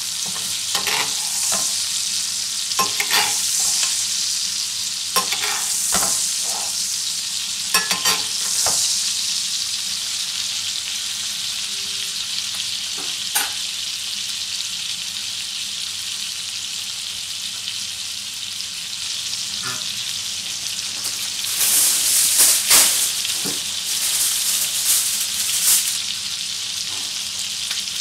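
Entrecote steak sizzling steadily in hot butter and garlic in a stainless steel frying pan. In the first several seconds a metal spoon clinks against the pan as the butter is basted over the steak. After about twenty seconds the sizzle grows louder for a few seconds.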